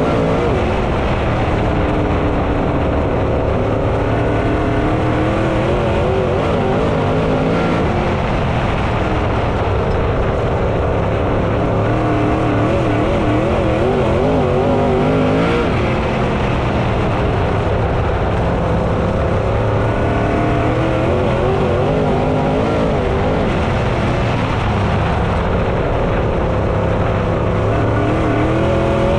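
Dirt late model race car V8 engines running at race pace around a dirt oval. The engine note rises and falls over and over, climbing on the straights and dropping into the turns.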